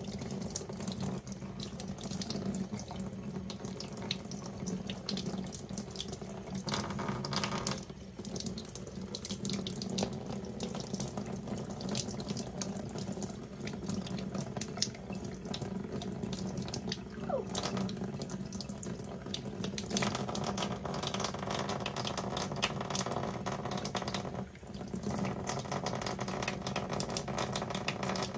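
Tap water running from a faucet into a sink and splashing over hands as they wash a small animal under the stream.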